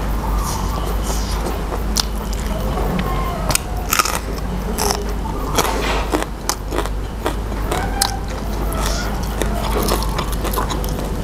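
Close-up chewing and crunching of crisp raw vegetables in the mouth, with irregular sharp crackles and clicks as they are bitten.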